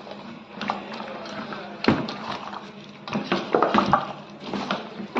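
A few sharp knocks and clatters, the strongest about two seconds in and a quick run of them a little past three seconds.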